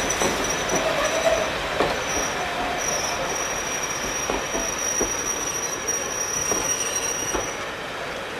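Railway train wheels squealing on the rails as the train moves. A thin, high squeal holds steady over a rumble with a few scattered knocks, and fades out near the end.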